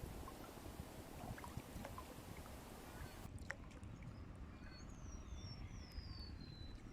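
Low rumble of water sloshing, with scattered small clicks; a high hiss drops out abruptly about three seconds in. In the second half a bird gives a run of short falling whistles.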